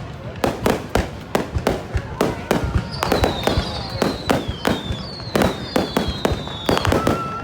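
Fireworks display: a fast, irregular string of bangs and cracks, with several high whistles falling in pitch through the middle.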